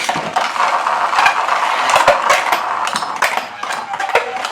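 3D-printed Beyblade spinning tops whirring in a plastic stadium and repeatedly clashing, giving a steady scraping hiss broken by many sharp clicks.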